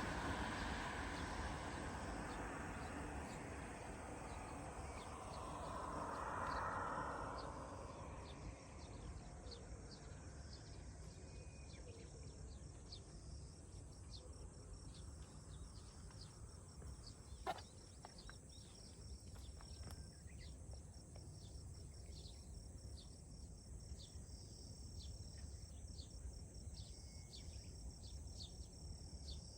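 Countryside ambience: a rushing noise fades away over the first several seconds, leaving a faint, steady high insect drone with many short chirps from insects and birds. A single sharp click comes about halfway through.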